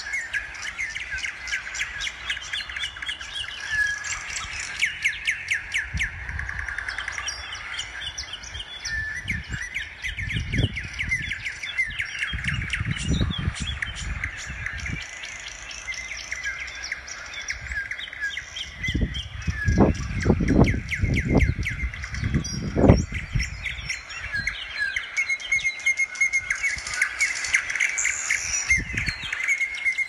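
Several small birds chirping and singing continuously in quick, repeated trills. Low rumbling bumps on the microphone come in twice, about ten to fifteen seconds in and again around twenty to twenty-three seconds, the loudest near the end of the second stretch.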